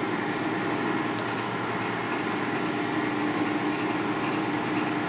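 A metal-cutting machine tool running steadily through a light finishing cut, with a constant hum; its cutter edge is getting dull.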